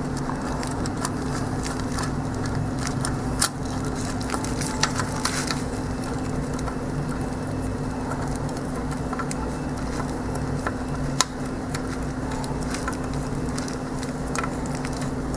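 Steady low hum throughout, with a few light clicks and taps of metal parts and tools being handled, the sharpest about three and a half seconds in and again near eleven seconds.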